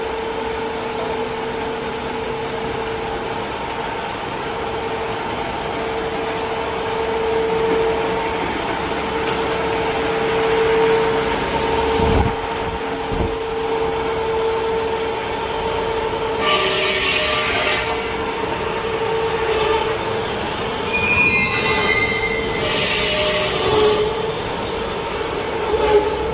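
Automatic toilet-paper log saw cutting machine running with a steady hum. Two knocks come around the middle, and loud bursts of hissing noise, each about a second long, come twice in the second half.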